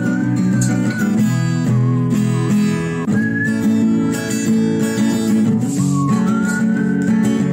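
Background music: strummed acoustic guitar under a gliding lead melody, playing without a break.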